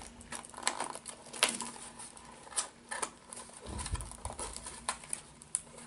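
Small cardboard box and the plastic packaging inside it being handled and opened by hand: irregular light clicks, scratches and rustles.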